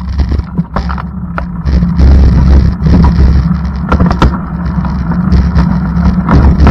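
Low rumble of a moving vehicle heard from on board, swelling over the first two seconds, with scattered knocks and rattles.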